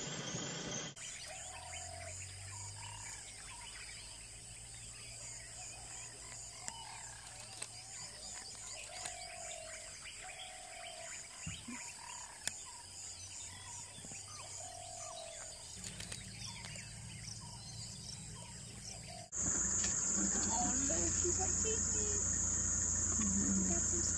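Dusk wildlife ambience: insects chirring steadily high up, with a bird repeating a short call every second or two over a low steady hum. About three quarters of the way in, after a cut, a much louder, steady high insect drone takes over, with idling vehicle engines low underneath.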